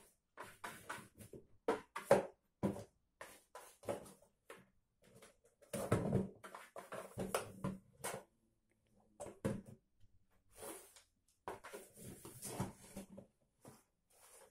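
A cat pawing at and shoving a small box about on a laminate floor: an irregular run of light knocks and scrapes, the sharpest about two seconds in and a longer scuffle around six seconds in.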